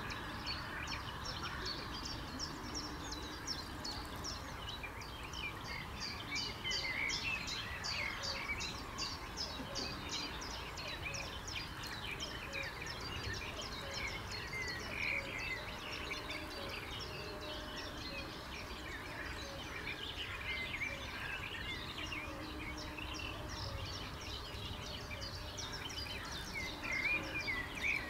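A dense chorus of frogs croaking, a continuous stream of rapid pulses, with birds singing through it.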